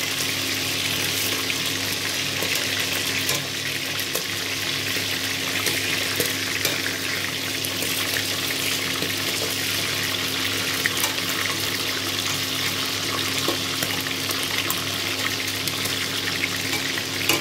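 Pork belly cubes frying in hot oil in a stainless steel pot: a steady sizzle with fine crackling pops throughout. A steady low hum runs underneath.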